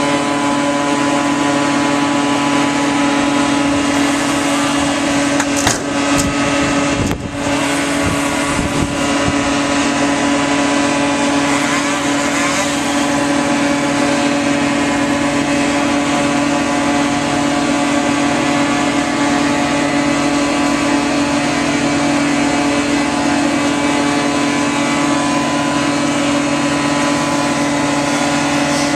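Tree-trimming power equipment running steadily: a continuous engine drone with a strong, even hum. A few knocks and a brief dip break into it about six to eight seconds in.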